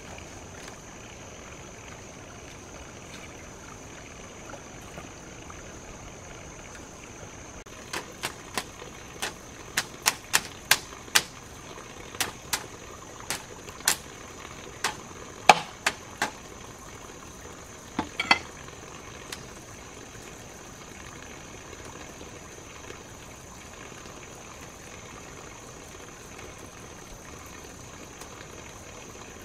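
An irregular run of about twenty sharp knocks or taps, starting about eight seconds in and stopping about eleven seconds later, over a steady high hiss.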